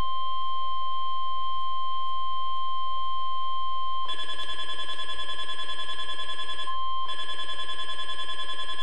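Weather Radio Canada's steady 1050 Hz alert tone sounding for its monthly test. About four seconds in, the weather radio receiver's alarm is set off by it and starts a rapid warbling beep over the tone, which cuts out for a moment a few seconds later and then resumes.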